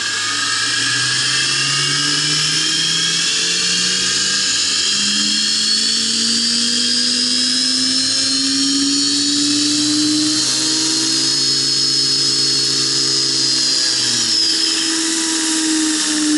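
Belt grinder's motor and sanding belt speeding up to high speed over a prototype tracking assembly with a crowned steel wheel, the whine rising in pitch for about ten seconds and then holding steady.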